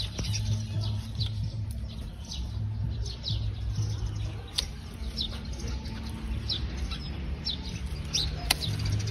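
Small birds chirping over and over in short, high, falling calls, over a low steady hum, with a few sharp clicks, the loudest about 8.5 seconds in.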